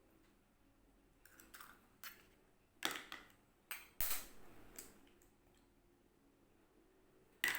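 A handful of light, scattered clicks and knocks of kitchen utensils against a mixing bowl, spaced irregularly about a second apart.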